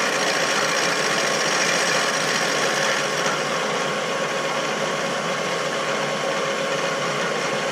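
A machine running steadily: an even mechanical noise with several constant tones, unchanging throughout.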